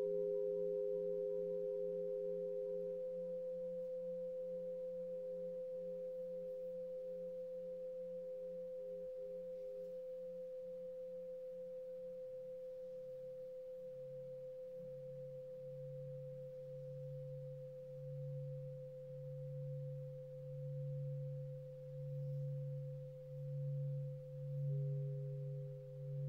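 Several steady ringing tones sounding together, slowly fading over the first half. From about halfway on, the lowest tone swells and fades in slow pulses, roughly one every second and a half.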